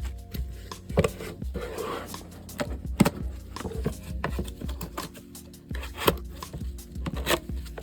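Handling of a motherboard box and its packaging: scattered sharp knocks and clicks, the loudest about a second in and about three seconds in, with a short rubbing scrape in between. Soft background music runs underneath.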